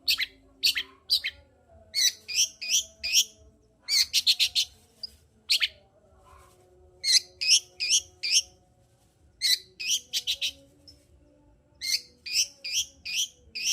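Long-tailed shrike (cendet) singing in quick clusters of three to six short, sharp, high notes, with pauses of about a second between clusters.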